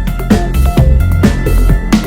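Electronic background music with a steady drum beat, about two hits a second, over a sustained bass line.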